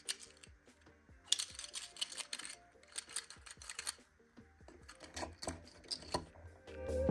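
Quiet background music with faint sustained tones, overlaid by irregular clusters of light, sharp clicks, like typing.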